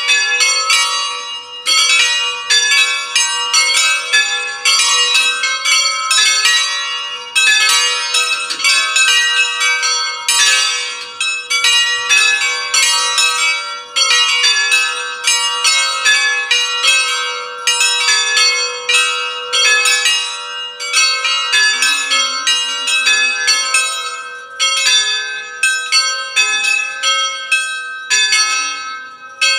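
Full peal of a hand-rung set of five Allanconi church bells from the 1980s, tuned with A4 as the main note, swinging freely 'a distesa' so that their clappers strike in a fast, continuous, overlapping stream of ringing strokes.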